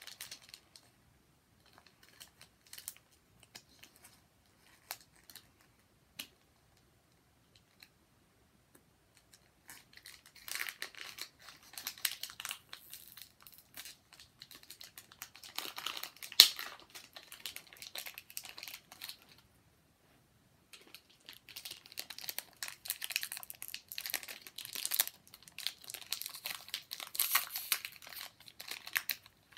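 Foil wrapper of a Pokémon card booster pack crinkling and tearing as it is worked open by hand, in two long stretches with a short pause between. A single sharp rip stands out as the loudest moment about halfway through.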